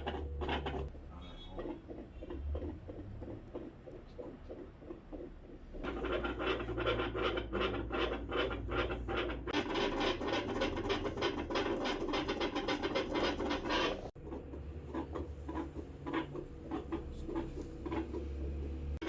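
A dog's heartbeat heard through a stethoscope chest piece: quick, regular beats under scratching and rubbing of the chest piece on fur. The sound breaks off abruptly about 14 seconds in and comes back. The later beats carry what the vet judges to be a heart murmur.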